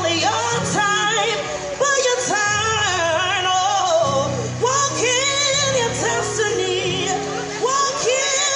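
Gospel song with a woman singing over long held bass notes, played through a loudspeaker.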